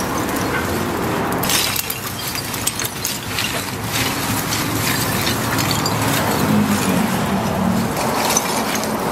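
Lumps of charcoal poured from plastic bags into a metal grill trough, clattering and clinking continuously over the plastic crinkling.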